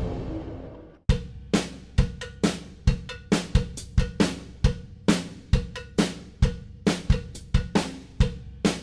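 Background music: the tail of a music sting fades out, then a steady drum-kit beat of kick, snare and hi-hat starts about a second in, at roughly two hits a second.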